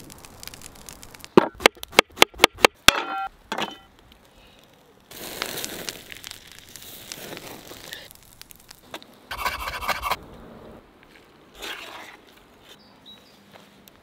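Trout grilling on a wire rack over a wood fire: a quick run of sharp clicks and metallic clinks early on, then stretches of crackling hiss. Faint high bird chirps come in near the end.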